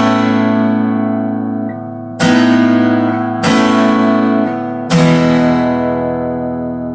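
Bentivolio 1501 all-solid acoustic guitar with Indian rosewood back and sides, single chords strummed three times and left to ring out, the last one sustaining and slowly fading.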